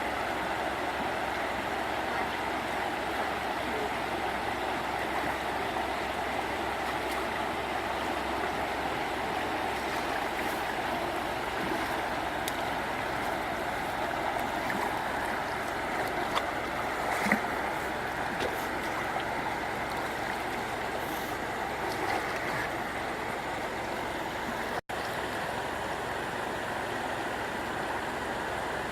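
Steady rushing of flowing water, with a few faint clicks and knocks about halfway through and a momentary dropout near the end.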